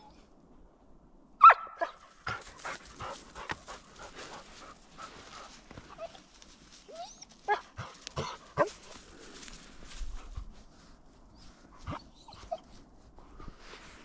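German wachtelhund giving one loud, short yelp about a second and a half in, then a few brief whines, amid crackling steps through snow-dusted heather and brush.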